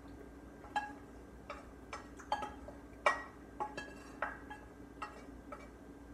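A spoon knocking and scraping against the inside of a copper saucepan as sauce is spooned out: about a dozen irregular ringing clinks, the loudest about three seconds in, over a steady low hum.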